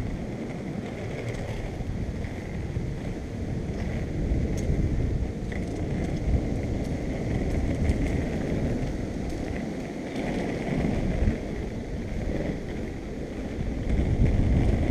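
Skate wheels rolling steadily over an asphalt path, a continuous low rumble, with wind buffeting the microphone.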